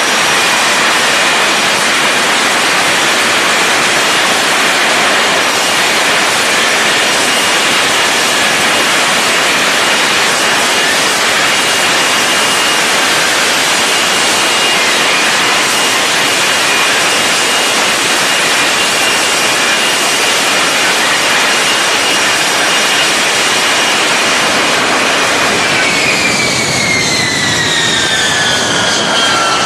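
F-35B's F135 turbofan and lift fan running at hover power: a loud, steady jet noise with a high whine. About four seconds from the end, after touchdown, the whine falls in pitch as the engine spools down.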